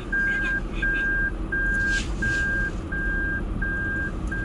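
A car's in-cabin reverse warning buzzer beeping steadily, a long single-pitch beep about every 0.7 seconds, signalling that the car is in reverse, over the low hum of the idling engine.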